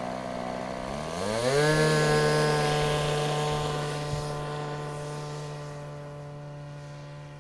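Glow-fuel engine of an R/C model airplane running at idle, then opened up to full throttle about a second in, with a quick rise in pitch. It then holds a steady high-pitched note that fades gradually as the plane moves away.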